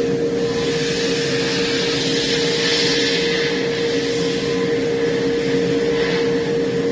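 Media blast cabinet in use: the nozzle's steady hiss of glass-bead media blasting a motorcycle frame. It is heaviest in the first half, over a constant hum.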